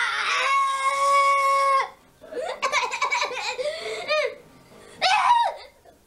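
A young boy belting out one long held note, followed after a short pause by wavering, warbling vocal sounds and bursts of laughter and squealing.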